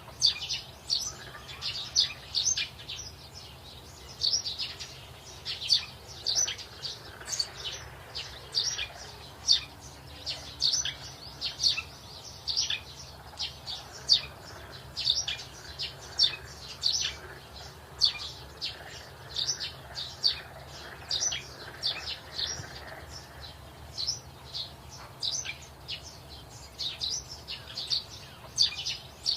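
Birds chirping: a dense run of short, high chirps, several a second, with no pause.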